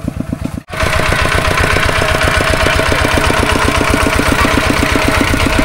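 Two-wheel walking tractor's single-cylinder diesel engine chugging with a fast, even beat. It drops out for an instant about half a second in, then runs on louder.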